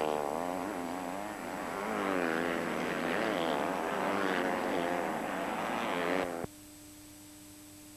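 Motocross bike engines revving at racing speed, their pitch rising and falling with the throttle as several bikes pass. About six and a half seconds in, the sound cuts off abruptly, leaving a faint steady tone.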